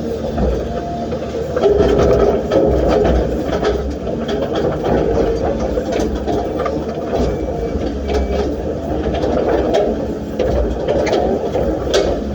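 Excavator diesel engine running steadily, with occasional sharp knocks and clicks through the work.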